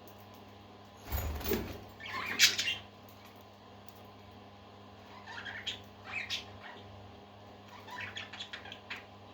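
Pet parakeets chirping in short scattered bursts, three groups of calls, the loudest about two and a half seconds in. A brief noisy bump just before the first group, over a steady low hum.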